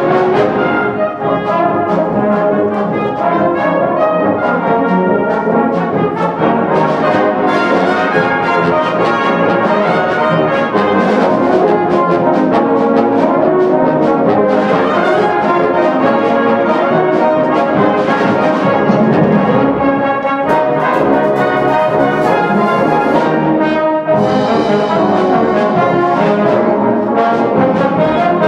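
Full brass band playing, with cornets, euphoniums, trombones and tubas together.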